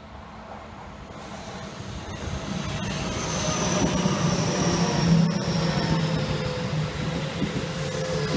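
Seibu Railway 30000 series electric train running past at close range: wheels rumbling on the rails, growing louder over the first few seconds and then holding steady, with a high motor whine and lower hums slowly falling in pitch.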